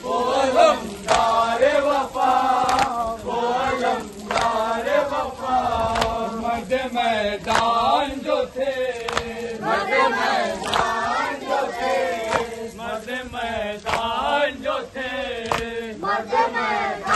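A group of men chanting a Muharram nauha (lament) together, with sharp slapping strikes landing every second or so.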